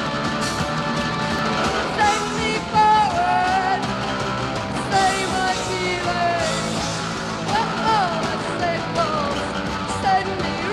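Post-punk rock band playing live, with electric guitar and drums; a woman's voice comes in singing about two seconds in, in sliding, wavering notes over the band.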